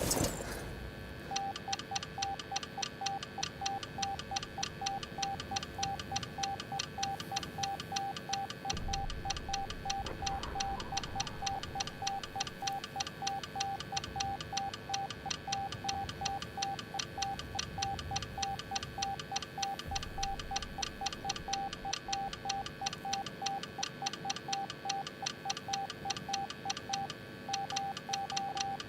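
Morse code sent as a single beeping tone, keyed on and off in fast short and long beeps that run without a break from about a second in, after a brief noisy sound at the very start.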